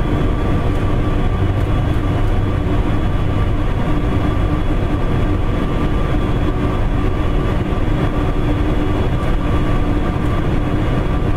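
Steady cockpit drone of an Airbus A400M Atlas in flight: its four turboprop engines and propellers make a constant low hum, with a few steady tones and airflow noise over it.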